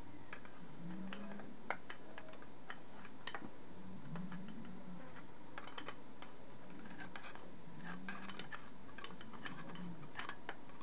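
Irregular light clicks and scrapes of a screwdriver tip on the metal gasket face of a British Seagull outboard's lower unit, picking out grit left behind before a new water pump gasket is fitted.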